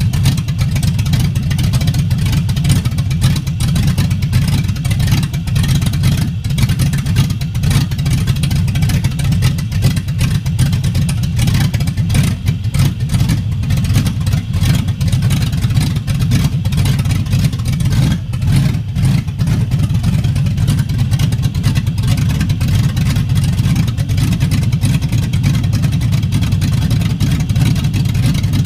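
A Chevy 5.3 L LM7 V8 swapped into a Dodge Dakota, running rough and loping at idle despite a stock camshaft: a steady, low engine rumble. The rough running is put down to an unadjusted idle screw on the throttle body and a MAP sensor not yet hooked up to the Holley Terminator X ECU.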